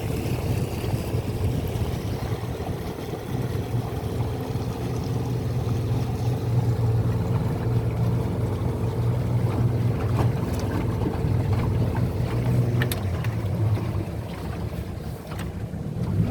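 Boat engine running steadily at low speed with a low hum. A few light clicks or knocks come about ten to thirteen seconds in, and the engine eases slightly near the end.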